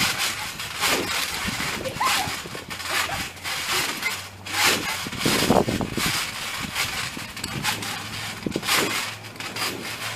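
Bare feet bouncing and sliding on a trampoline mat covered with wet Orbeez water beads: irregular short bursts of scattering, splashing beads.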